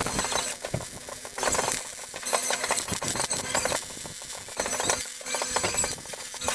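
MIG welding arc crackling in bursts of about a second with short pauses between them, as a series of welds is laid.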